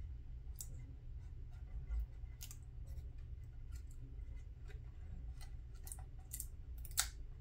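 Faint scattered clicks and light scratches from fingers and a small tool working bare metal foil onto a plastic scale-model chassis, with one sharper click near the end. A low steady hum lies underneath.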